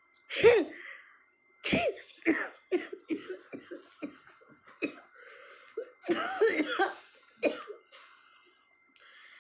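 A woman in a coughing fit, set off by sniffing jaljeera spice powder. A few loud coughs come in the first two seconds, the loudest about half a second in, followed by a long run of shorter, weaker coughs.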